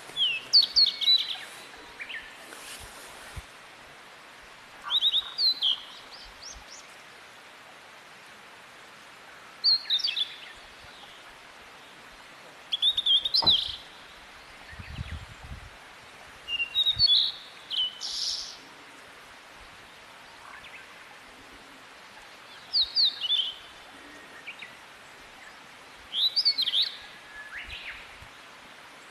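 A songbird singing short phrases of quick, high, sliding notes, about seven phrases, each roughly a second long and coming every three to five seconds.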